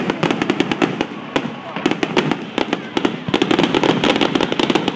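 Aerial fireworks display bursting in rapid succession: a dense barrage of bangs and crackles, several per second, some louder than others.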